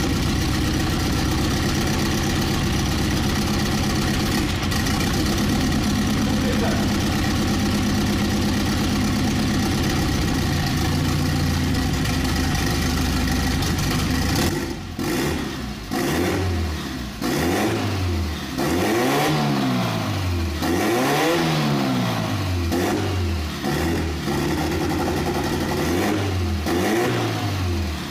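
Nissan CA18DET 1.8-litre turbocharged twin-cam four-cylinder idling steadily, then, from about halfway through, revved in a series of about eight quick blips, each rising and falling back to idle.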